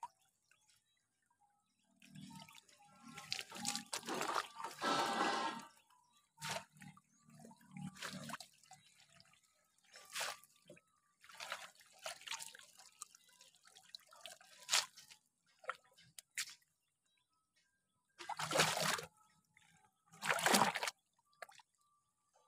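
Water splashing, trickling and dripping in irregular bursts as a wet mesh fish trap is lifted and shaken in shallow water, with two louder rushes of splashing water near the end.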